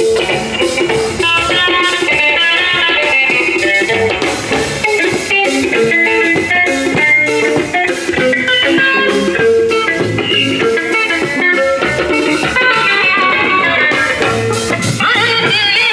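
Band music with a plucked guitar melody over drums.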